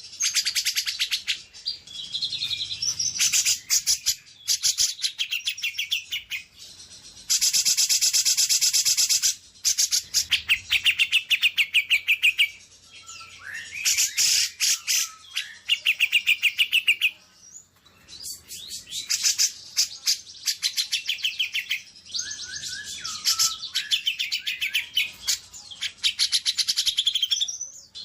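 Songbirds singing in spells of a few seconds: rapid, loud chattering trills of fast repeated high notes, with a few lower gliding whistles mixed in about halfway through and again near the end.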